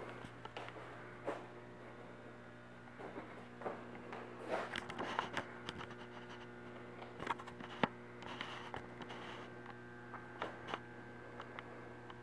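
Steady electrical mains hum, with scattered faint clicks and rustles.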